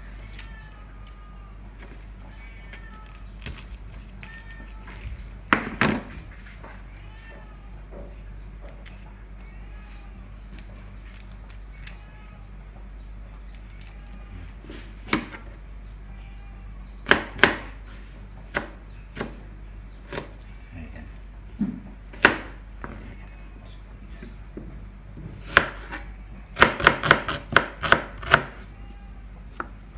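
Kitchen knife cutting garlic cloves and then a shallot on a plastic cutting board. Single strikes come a few seconds apart, then a quick run of chopping, about four strikes a second, near the end.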